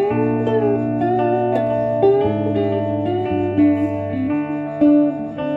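Two guitars playing together, one of them electric: low held notes change every second or two under a higher melody line with bent, sliding notes.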